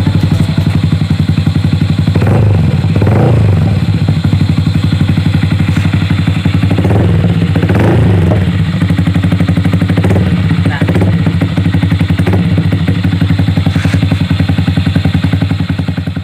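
Yamaha Sniper 155R's single-cylinder engine running through an aftermarket Akrapovic single-hole exhaust, idling steadily with a round, full note and blipped several times: two revs about two to four seconds in, two more around seven to eight seconds, and shorter ones near ten and twelve seconds.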